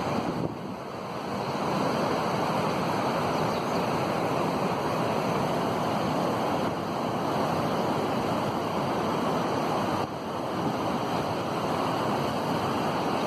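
Flood-swollen Kaveri River rushing past in a steady, continuous roar of churning water, dipping briefly in loudness about half a second in and again near ten seconds.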